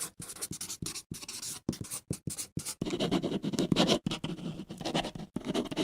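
Pencil writing on paper: quick, scratchy strokes, several a second. About halfway through the strokes become denser and louder.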